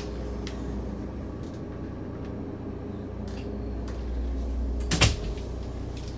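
Steady low machinery hum aboard a yacht, with a few light clicks and one sharp knock about five seconds in.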